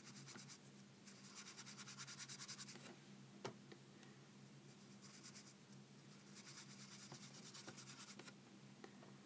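Faint rapid scratching of a paintbrush scrubbing back and forth on paper while painting with watercolours, in two spells about a second in and again near the end, with a single click in between.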